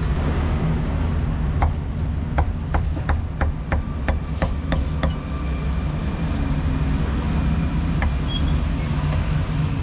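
Heavy cleaver chopping braised meat on a thick wooden chopping block: a quick run of about ten strikes, roughly three a second, from just under two seconds in to about five seconds in, then a single strike about eight seconds in. A steady low street rumble runs underneath.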